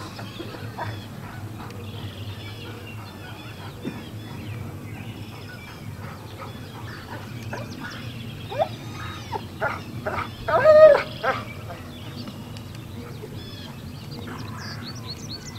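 A dog barking a few short times, the loudest bark coming about two-thirds of the way in.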